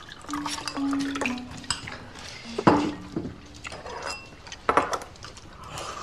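Chopsticks clicking against ceramic bowls and dishes during a meal, with two louder clinks, one near the middle and one about two-thirds of the way through.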